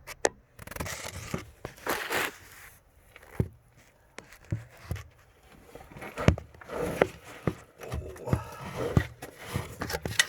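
Irregular rustling, scraping and sharp clicks of handling and movement close to the microphone.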